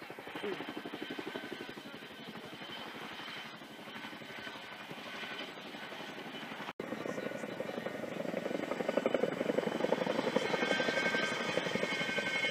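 RAF Chinook tandem-rotor helicopter's rotor blades chopping in a fast, even beat. The sound cuts out for an instant just past halfway, then comes back louder.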